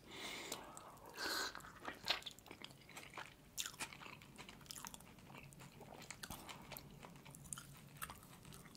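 Close-miked chewing of a soft steamed meat dumpling (manti), with scattered wet mouth clicks and smacks, a little louder about a second in.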